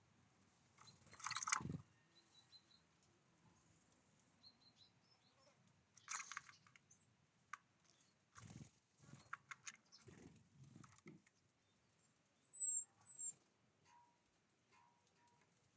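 Small birds at a feeder pecking and cracking seeds, giving scattered knocks and clicks, with a few short, high chirps. Two brief, higher notes come near the end.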